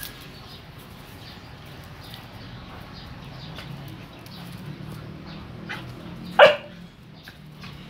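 A dog barks once, loudly and briefly, about six and a half seconds in. A shorter sharp sound comes right at the start, over faint ticks and scuffs.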